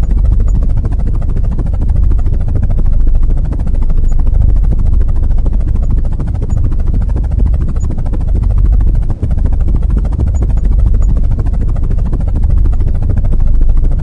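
Small electric motor spinning the plastic propeller of a homemade matchbox toy helicopter, heard as a loud, steady low rumble, with a brief drop about nine seconds in.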